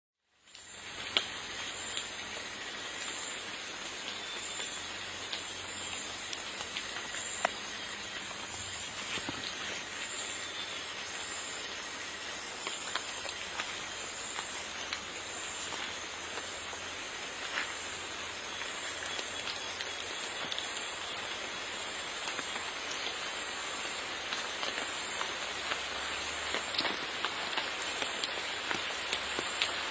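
Rain approaching over Amazon rainforest: a steady hiss of rain on the canopy, with a steady high-pitched drone held throughout. Individual drops ticking nearby grow more frequent over the last few seconds as the rain closes in.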